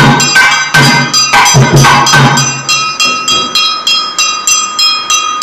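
Temple folk music: a hand drum beats together with ringing metallic strikes. About halfway in the drum drops out, leaving only the metallic ringing strikes at about three a second.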